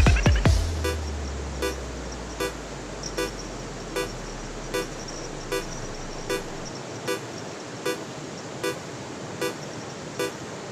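Edited-in electronic music: a heavy bass drop fades out within the first few seconds, then a short horn-like beep repeats about every 0.8 seconds over a steady hiss.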